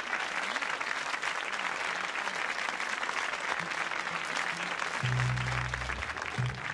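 Studio audience applauding, a dense patter of many hands clapping. About five seconds in, the song's accompaniment starts under the applause with low held notes that change pitch.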